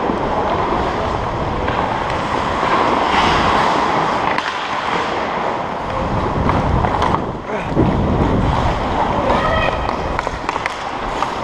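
Ice skate blades scraping and carving on rink ice, with rushing wind over a helmet-mounted camera microphone. Indistinct players' voices are mixed in.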